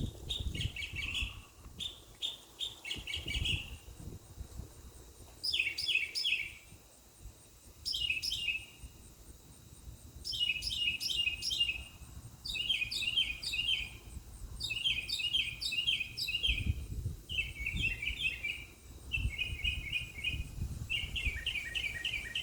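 Northern mockingbird singing: a string of short phrases, each one a quick run of the same high note repeated several times, with brief pauses between phrases.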